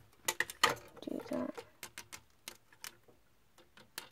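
Plastic LEGO pieces clicking and knocking irregularly as the model is set down on a desk and its parts are handled and moved. A brief low voice sound, like a hum, comes about a second in.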